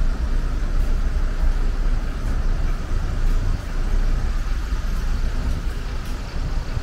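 Steady road traffic on a busy city avenue: a continuous rumble of passing vehicles with no single event standing out.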